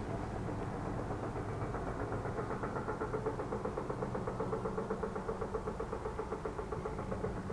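Unexplained distant pulsing thumps repeating rapidly and evenly over a low steady hum, the ongoing noise heard for hours without an identified source.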